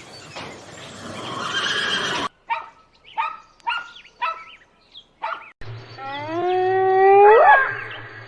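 Animal calls in abrupt cuts: a noisy cry, then five short pitched calls about half a second apart, then a long drawn-out call that sweeps sharply upward in pitch near the end.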